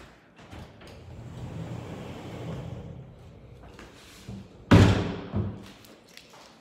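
Sliding closet door rolled along its track with a low rumble, then a loud thud as it reaches the end of its travel, followed by a smaller knock about half a second later.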